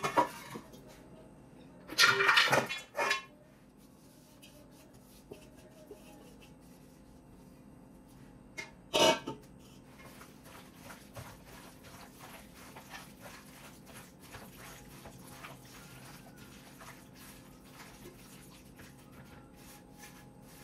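Stainless-steel bowls scraping and clanking as a chunky chicken marinade is tipped from one bowl into another, three short loud bursts in the first ten seconds. After that, a plastic-gloved hand mixing the marinade makes a long run of faint, irregular wet squishes.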